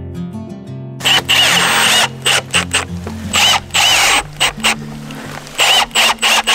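Cordless drill driving screws through a steel joist hanger into a wooden joist. It runs in repeated short spurts from about a second in, its motor whine rising and falling with each pull of the trigger. Background music plays underneath.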